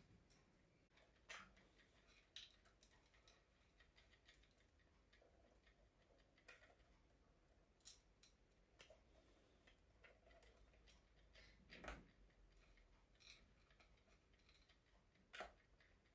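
Near silence broken by faint, irregular small clicks and light rattles: a cuckoo clock's chain and gears being handled while a jammed chain is worked free. A slightly louder click comes about twelve seconds in and another near the end.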